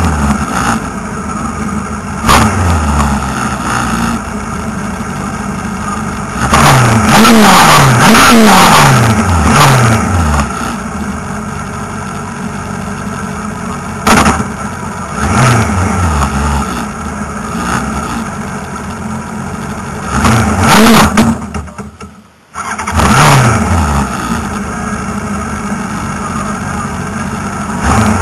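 Single-seater hill-climb car's engine heard from on board, idling while stationary and repeatedly blipped, so the revs jump and fall back. There is a quick string of several blips about a quarter of the way in. Near the three-quarter mark the engine note briefly drops almost away, then comes straight back.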